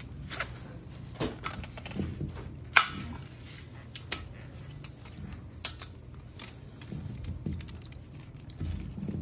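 Irregular clicks, clinks and knocks of metal clips, buckles and webbing being handled against a scuba cylinder while it is rigged for sidemount, with the loudest knock about three seconds in.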